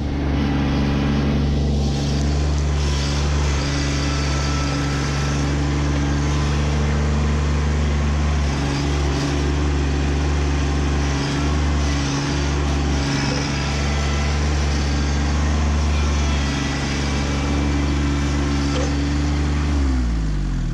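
Kubota B2601 compact tractor's three-cylinder diesel engine running steadily. Near the end it is shut off and winds down, its pitch falling to a stop.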